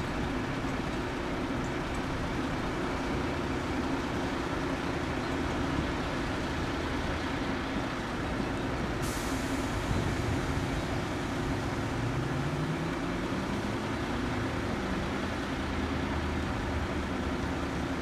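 Piper PA-46-350P Malibu Mirage's single piston engine and propeller droning steadily as it lands and rolls out. A high hiss comes in about halfway through, around touchdown, and a tone rises in pitch a few seconds later.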